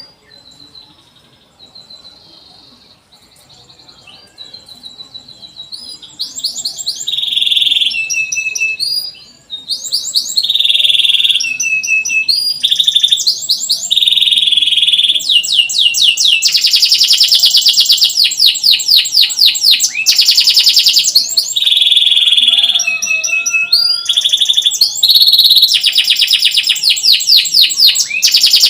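Domestic canary singing a long, varied song of rapid trills, fast repeated sweeping notes and held chirping phrases. It is soft for the first several seconds, then loud and nearly unbroken from about ten seconds in.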